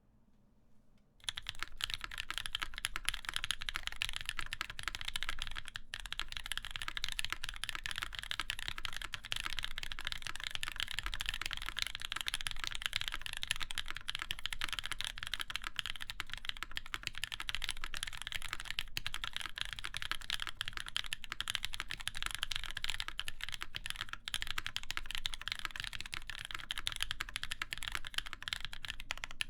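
Fast, continuous typing on a Keycult No. 2 mechanical keyboard with lubed, broken-in NovelKeys Cream linear switches in a full aluminium plate, under GMK keycaps. The keystrokes start about a second in.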